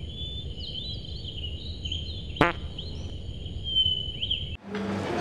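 Edited-in nature-ambience sound effect: bird-like chirps over a steady high tone and a low rumble, with one sharp click about two and a half seconds in. It cuts off abruptly near the end.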